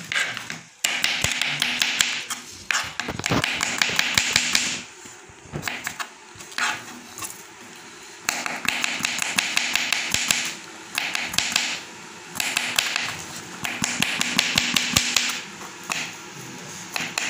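Kitchen knife rapidly chopping garlic cloves on a chopping board: runs of quick, sharp taps a few seconds long, broken by short pauses.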